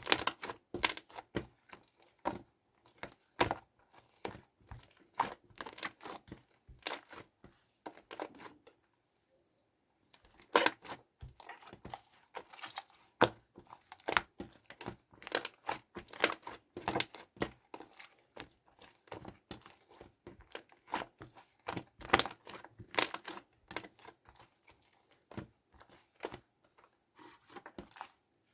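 Two-layer white and blue clear slime being pressed and mixed by hand on a wooden board, giving irregular sticky crackles and pops, with a short pause about nine seconds in.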